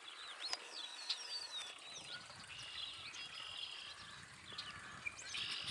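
Songbirds chirping in many short rising and falling calls, with a high steady trill that comes and goes, faint.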